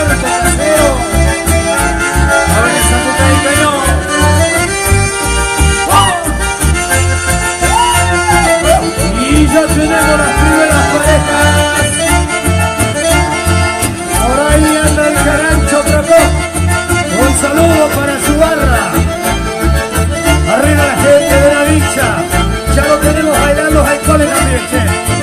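Live chamamé band playing an instrumental passage led by accordion over a steady bass beat.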